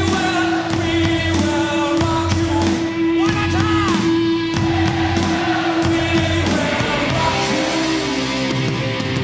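Live stadium rock concert: a singer's voice and a huge crowd singing along, with one long note held for about six and a half seconds. A guitar comes in near the end.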